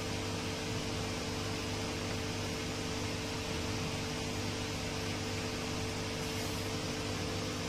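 Steady background hum with hiss, a few low tones held unchanged throughout.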